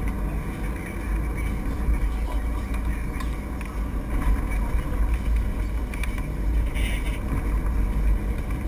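Sportfishing boat's engines running steadily, a deep low drone with a noisy wash over it, heard from a camera mounted in the cockpit.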